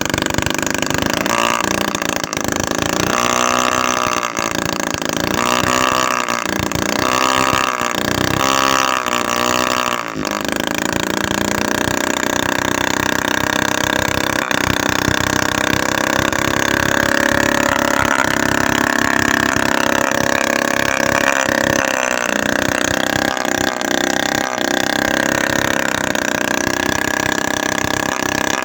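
Homemade 7cc two-stroke engine, built from a used refrigerator compressor, running. It speeds up and slows down several times in the first ten seconds, then runs steadier.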